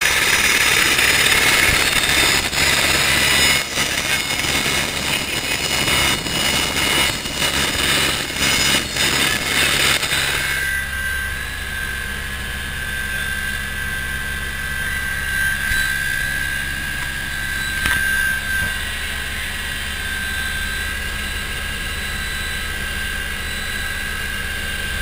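Helicopter running with its rotor turning, heard from outside as a loud rush with gusty buffeting on the microphone. About ten seconds in it changes abruptly to the steady high whine and low drone of the helicopter heard from inside the cabin in flight.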